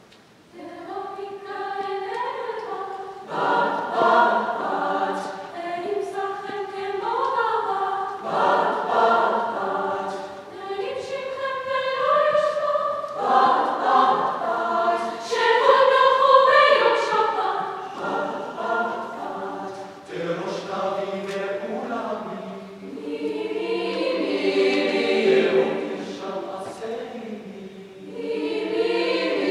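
A mixed-voice youth choir singing in parts, the music starting about a second in and moving in phrases with short breaks between them.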